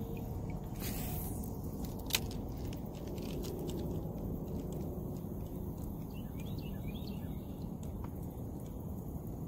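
Spinning reel cranked to retrieve a Rooster Tail spinner lure: small ticks from the reel over a steady low rumble, with one sharper click about two seconds in. Faint bird chirps come through in the middle.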